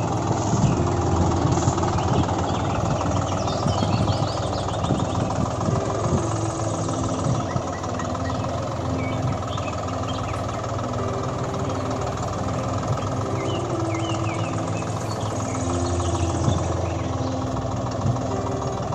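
Tractor engine sound running steadily, with short high chirps scattered through it.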